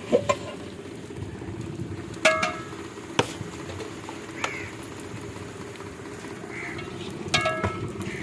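Short nasal animal calls in two brief bursts, about two seconds in and again near the end, over a steady low background hum. A single sharp knock comes about three seconds in.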